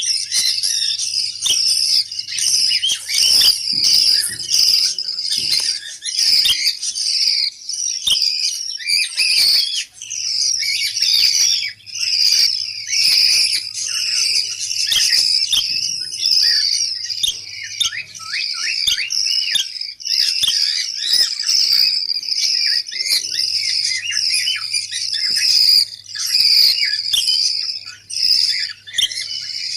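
Several budgerigars chattering and warbling without pause, many quick chirps overlapping.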